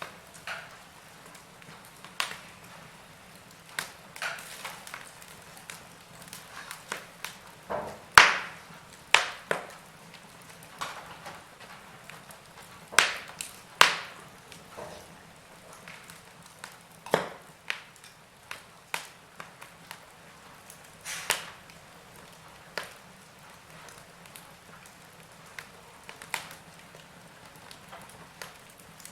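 Wood fire crackling: irregular sharp pops and snaps from burning logs over a faint steady hiss, the loudest pop about eight seconds in.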